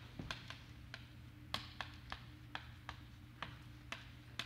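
Chalk clicking and tapping on a blackboard as words are written: a string of sharp, irregular clicks, about two or three a second, over a low steady room hum.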